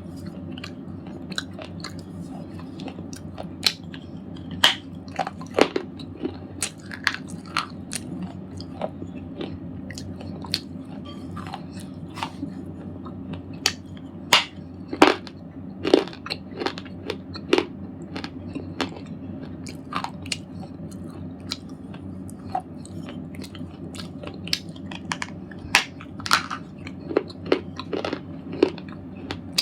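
A red slate ball being crunched and crumbled: irregular sharp cracks and crackles, bunched into clusters, over a steady low hum.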